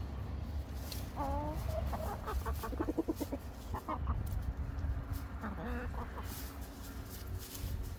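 Chickens clucking and calling: several short calls, some gliding in pitch, and a quick run of rapid clucks near the middle, over a steady low rumble.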